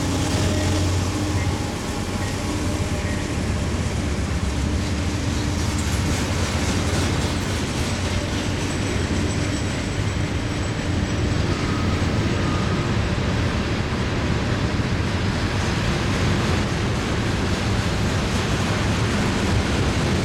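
Norfolk Southern freight train of loaded garbage cars rolling past close by: a steady rumble and rattle of steel wheels on rail. A low hum is heard in the first couple of seconds and then drops away.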